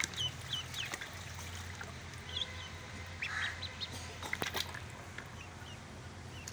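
Ducklings peeping in short, high calls, several in quick succession at first and a few more around the middle, over the steady splash and trickle of water pouring into a plastic tub as they paddle.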